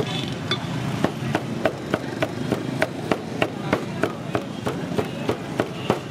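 Heavy cleaver chopping raw goat offal on a wooden chopping block. The cleaver strikes in a steady, fast rhythm of about two strong chops a second, with lighter strokes between.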